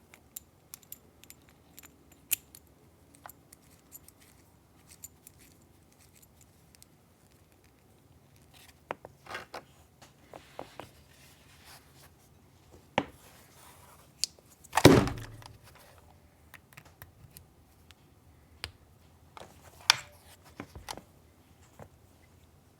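Scattered small clicks, taps and light rattles of keyboard parts and cable being handled on a desk, with one much louder knock about fifteen seconds in.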